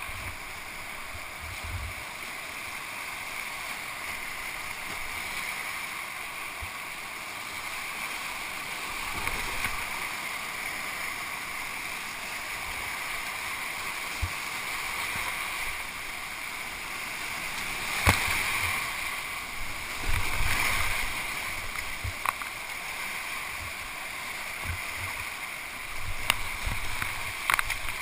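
Whitewater rapids rushing steadily around a kayak, with paddle splashes and a few sharp knocks, the loudest about two-thirds of the way through.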